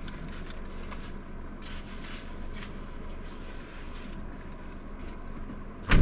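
Steady low hum of a vehicle running, heard from inside the cabin, with faint rustling, then a single sharp loud thump near the end.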